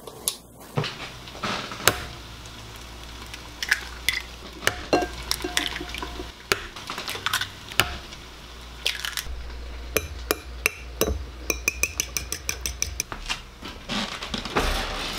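Kitchen cooking clatter: a frying pan and its lid knocked about on a gas stove and a utensil clinking against a ceramic bowl, with a quick run of ringing clinks a little past the middle.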